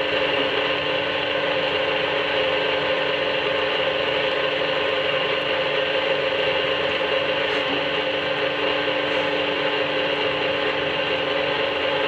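Hydraulic power unit running steadily, a constant mechanical whir with a steady hum, as it drives a test cylinder's piston rod slowly outward.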